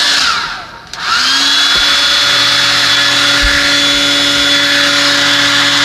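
Blow dryer running, switched off just after the start so its motor winds down with a falling whine. It is switched back on about a second in, whines up to speed, and then runs steadily with its fan hum and rushing air.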